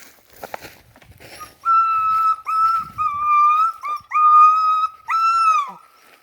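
Dog whining in a run of about six long, high-pitched whines, one very short, the last one falling away in pitch; it is a hunting dog that climbed up after a rat and is stuck, unable to get down. A little rustling comes before the whines.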